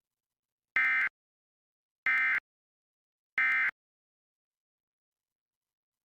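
Emergency Alert System end-of-message (EOM) signal: three short, high-pitched digital SAME data bursts about a second apart, marking the end of the monthly test alert.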